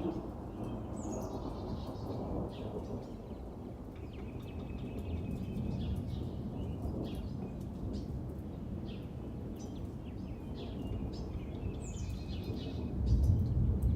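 Backyard birds chirping and calling, with short chirps and a few high calls that sweep downward, over a steady low rumble that swells near the end.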